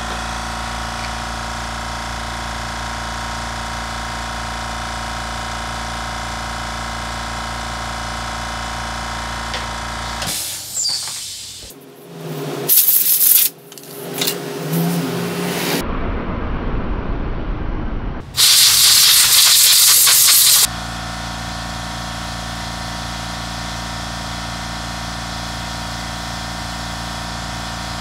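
Compressed-air blow gun blasting dust off the scooter's plastic drivetrain cover parts: two loud hissing blasts about halfway through, the second lasting about two seconds. A steady machine hum runs under the rest.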